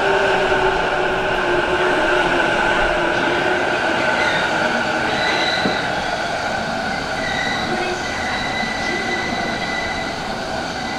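JR East E233-7000 series electric commuter train rolling slowly into the platform: a steady rumble with thin, high squealing tones that become more prominent in the second half as it slows, and the overall level easing off slightly.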